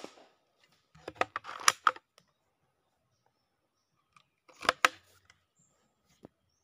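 Two short clusters of sharp clicks and light knocks, about a second in and again near the five-second mark, from hands handling gear close to the microphone.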